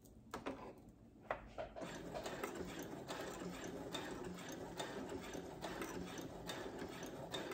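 Brother CS7000X computerized sewing machine: a few clicks, then from about two seconds in it runs steadily, stitching a seam.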